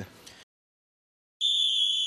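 Silence, then just past halfway a single high, steady electronic tone sounds for about a second: a TV segment-transition sound effect.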